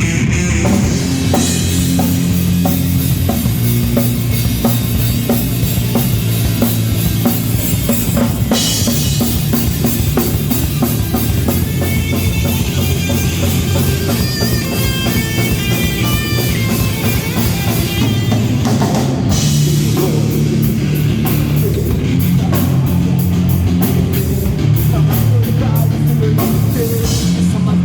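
Rock band playing at a sound check: drum kit keeping a steady beat under guitars and bass, with a high stepped melodic line for a few seconds near the middle.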